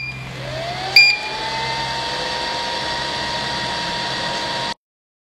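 3D sublimation heat press machine starting its cycle: a motor inside it spins up with a rising whine that settles into a steady hum, and the control panel beeps once about a second in. The sound cuts off suddenly near the end.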